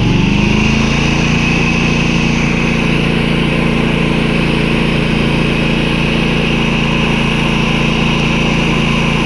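Predator 11,500-watt inverter generator's engine speeding up as eco mode is switched off, then running steadily at the higher, constant speed.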